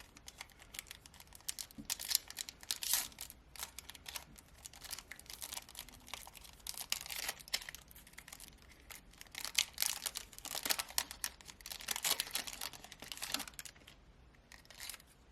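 Topps trading-card pack wrapper crinkling and tearing as it is opened, with the cards inside handled. The crackling comes in irregular flurries, heaviest in the middle stretch and easing off near the end.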